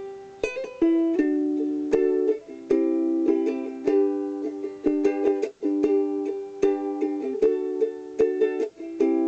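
Ukulele chords strummed in a steady rhythm, each strum ringing briefly before the next.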